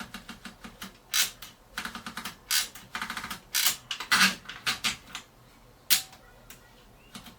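1950 Mercedes office typewriter's platen ratchet clicking in quick runs as the line-space lever advances the platen step by step, with a few single sharp clacks from the carriage mechanism.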